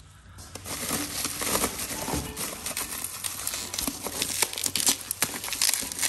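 Plastic bubble wrap crinkling and crackling with many small clicks as a hand pulls it away from an exhaust tip, starting about half a second in.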